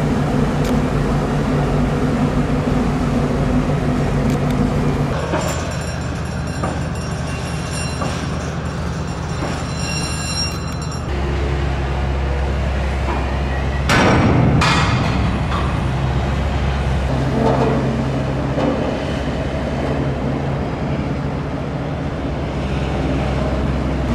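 Shipyard noise around a ship on its launch slipway: a steady low machinery hum that shifts in pitch a few times, with a thin high tone for several seconds early on and a loud rush of noise about fourteen seconds in.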